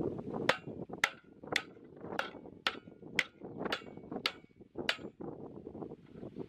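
A restored antique carpenter's hatchet chopping into the edge of a pine board: nine quick, sharp strikes, about two a second, as a notch is cut in a cut test of the freshly sharpened edge.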